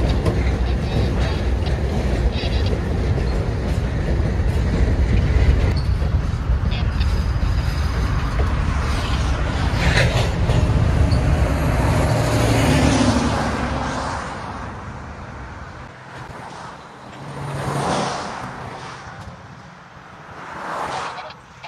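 ALCO diesel locomotives running with a deep, steady rumble that fades away about two-thirds of the way through, followed by two shorter swells of noise.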